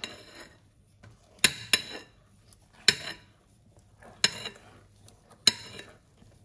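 A utensil clinking and scraping against a mixing bowl while cake batter is folded: six sharp, ringing clinks about every second and a half, with soft scraping between them.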